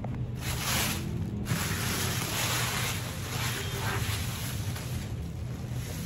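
Thin white packaging wrapping rustling and crinkling as a boxed keyboard is pulled out of it. The rustle is loudest in the first second or two and fades toward the end.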